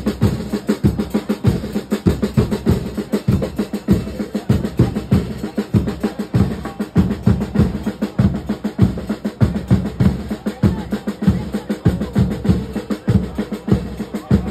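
Supporters' drums in the stands beating a steady rhythm of about three strokes a second, deep bass-drum hits with snare rolls.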